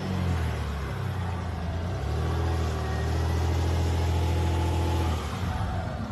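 Land Rover Discovery 4's engine revving under throttle, rising twice and then holding at higher revs for about three seconds before dropping back near the end.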